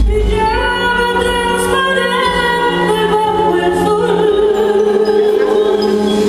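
A woman singing long, held notes over a backing track, with a note sustained from about four seconds in.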